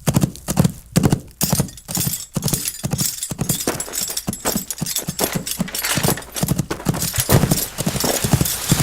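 Horse hoofbeats: a steady run of hoof strikes, about two to three a second, with a gritty hiss between them as of hooves on dirt or gravel.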